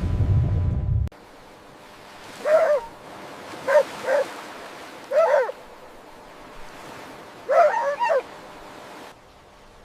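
A small dog yipping and whimpering in short, high, bending calls: one, then two close together, one more, and a quick run of three near the end. A loud low rumble like surf cuts off abruptly about a second in.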